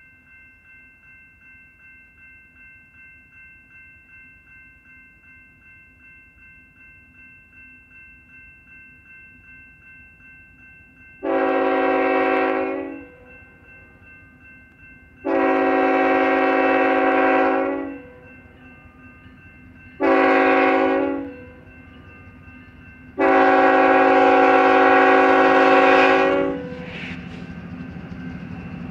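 The grade-crossing bell dings steadily. Then the lead GE ET44AC locomotive's air horn sounds four blasts, long, long, short, long: the standard grade-crossing warning. A low rumble from the approaching locomotive builds near the end.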